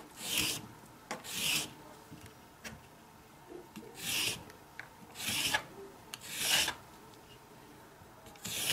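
Y-shaped vegetable peeler scraping the outer skin off white asparagus spears: six separate rasping strokes, each about half a second long, with a longer pause after the second.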